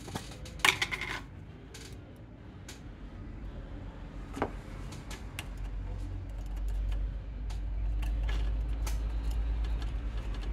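Small metal tools clicking and tapping on a TV power-supply circuit board, with a cluster of sharp clicks about a second in. From about six seconds a low steady rumble joins underneath.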